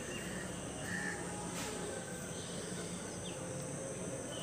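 Quiet outdoor ambience: a steady low hum under an even background hiss, with a few faint, short bird calls about a second in and again past three seconds.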